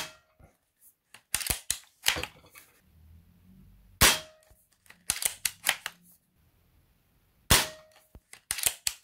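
A .22 Diana Mauser K98 PCP air rifle firing three shots about three and a half seconds apart, each a sharp report with a short ring. Between shots the bolt is worked, cycling the magazine with a quick run of metallic clicks.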